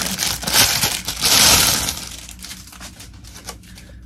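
Clear plastic bag crinkling as a plastic water bottle is pulled out of it, loudest in the first two seconds, then dying down to fainter rustles.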